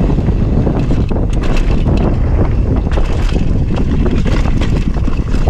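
Loud wind buffeting on the microphone during a fast mountain-bike descent, with the tyres rolling over a dirt trail and the bike rattling over bumps in many short clicks and knocks.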